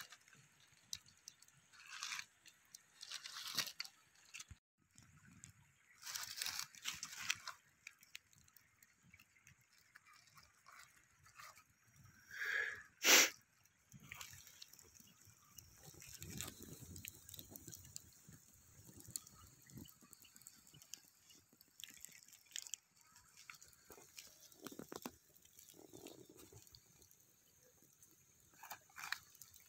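Wet squelching and plastic crinkling in irregular bursts as pieces of chicken coated in thick yogurt marinade are handled on a plastic sheet and pushed onto bamboo skewers. One sharp click comes about halfway through.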